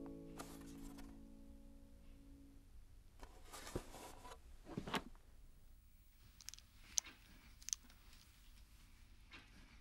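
A sustained piano chord dies away over the first couple of seconds. After that come faint rustles and a few light clicks and taps as things are handled, with short sharp clicks spaced out in the second half.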